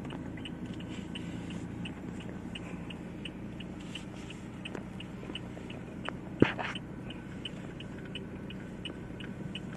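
Inside a car: a low steady rumble of the running car with a turn-signal indicator ticking evenly about twice a second, and one sharp loud click about six and a half seconds in.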